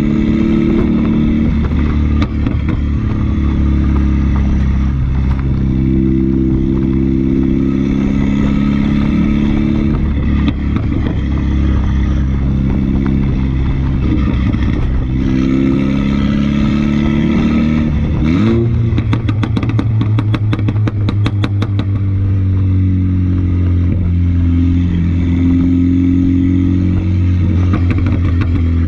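2.0-litre turbocharged four-cylinder of a 2015 F56 Mini Cooper S running through a catless, straight-pipe exhaust, its note shifting up and down with engine speed. About eighteen seconds in the pitch rises quickly, followed by a few seconds of rapid, evenly spaced pops and crackles from the exhaust.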